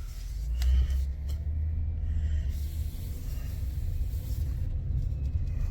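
Steady low road and engine rumble inside a moving car's cabin, with a couple of light clicks about a second in.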